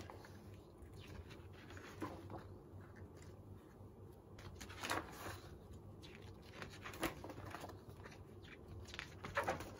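Thick photobook pages being turned in a ring binder: about five soft paper swishes, a couple of seconds apart.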